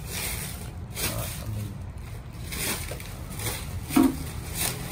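Handling noise: rustling and light clicks as a car audio amplifier and a taped wiring harness are moved about by hand, with one brief, louder low sound about four seconds in.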